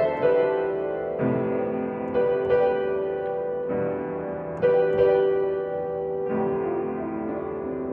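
Slow piano music: single notes and chords struck every second or so and left to ring out.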